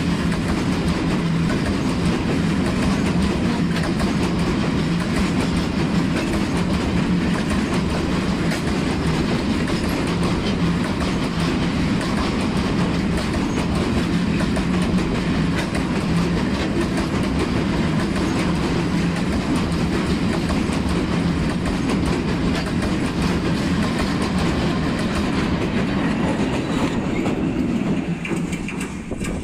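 A freight train's loaded wagons rolling past close by at speed: a steady, loud rumble of steel wheels on rail, with frequent clicks over the rail joints. Near the end it drops quieter as the train recedes.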